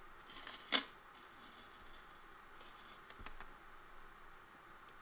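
Masking tape being pulled off and torn: one short, sharp rip a little under a second in, with a few light clicks and taps of handling around it and again past three seconds.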